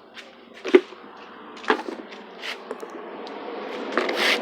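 Plastic bottle fixed to a bicycle wheel, knocked by the spokes: a few separate sharp clacks as the wheel starts to turn, with a rising rushing noise near the end as it speeds up.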